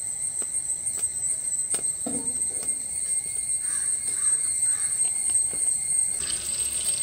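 Open fire of dry coconut fronds crackling with scattered small pops under a steady high hiss. A brighter hiss comes in near the end.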